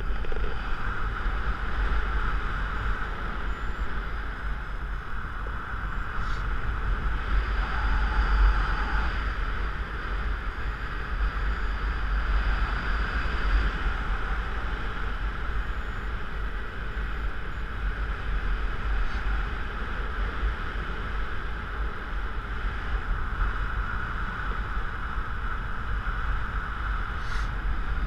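Steady airflow buffeting a paraglider pilot's body-mounted camera microphone in flight: a constant low rumble under an even rushing hiss.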